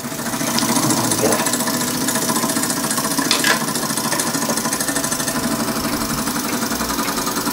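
Small model steam engine running fast, with a rapid, even beat from its cylinder and working parts. A short scrape a little over three seconds in comes as the lit burner is slid out from under the boiler.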